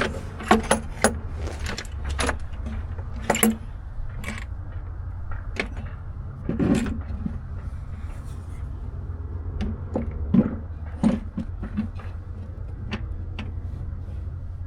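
Irregular metallic clinks and knocks, about a dozen, as a valve cover is handled and set onto a Detroit Series 60 diesel engine. The loudest knocks come about two-thirds of the way in. A steady low hum runs underneath.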